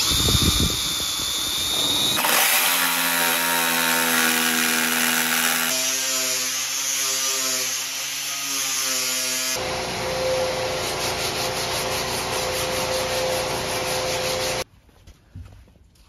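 Power tools working a wooden countertop in a string of short clips: an electric drill with a high motor whine bores a hole through the wood, then, across abrupt cuts, other power tools run steadily, among them an angle grinder on the countertop's edge. The tool noise stops suddenly about a second and a half before the end.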